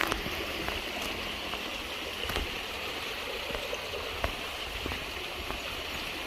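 Flowing stream water, a steady hiss, with a few scattered sharp ticks.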